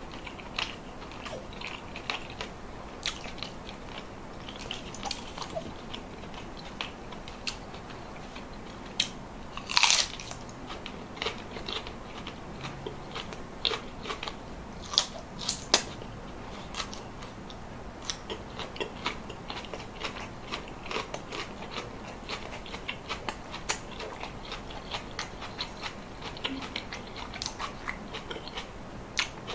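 Close-miked eating: a person biting and chewing crunchy food, with a steady run of sharp crackles and one louder crunch about ten seconds in.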